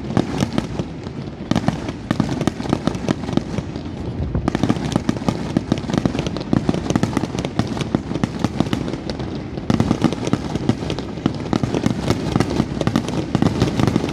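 Aerial fireworks crackling: a dense, rapid stream of sharp pops, many a second, coming in waves a few seconds long.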